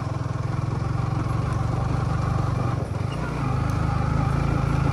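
Motorcycle engine running with a steady, fast low pulse; it dips briefly about three seconds in, then runs a little louder.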